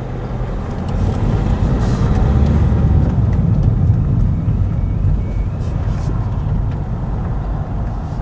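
Car engine and tyre noise heard from inside the cabin. It is steady at first, grows louder for a few seconds from about a second in as the car pulls away and turns, then eases off as it slows.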